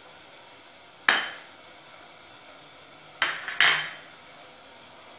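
A spoon knocking against a dish three times: once about a second in, then twice in quick succession about three seconds in, each with a short ring.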